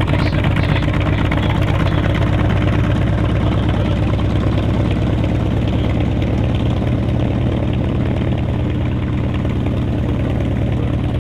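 North American T-28D Trojan's nine-cylinder Wright R-1820 radial engine running steadily at low taxi power as the aircraft taxis, easing off slightly in the second half.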